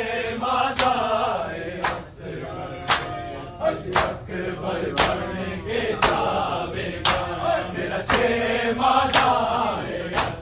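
Group of men chanting a noha, a Muharram lament, in unison, with the crowd's matam (open-handed chest-beating) landing as one sharp slap about once a second in time with the chant.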